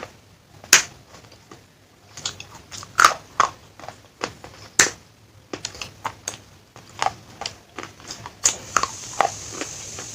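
Pieces of fired clay pot being bitten and crunched in the mouth: a run of sharp, irregular cracks and crunches, the loudest about a second in, about three seconds in and near five seconds.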